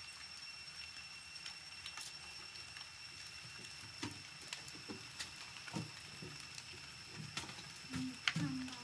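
A few short, low grunt-like sounds and faint clicks over a steady high-pitched whine; the loudest grunts come near the end.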